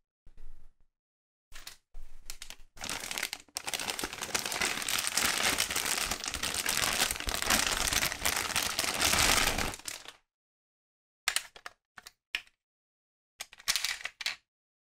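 Thin clear plastic packaging bag crinkling continuously for about seven seconds as a plastic toy is worked out of it, after a few short rustles. Near the end, a few brief bursts of handling noise from the unwrapped hard plastic toy.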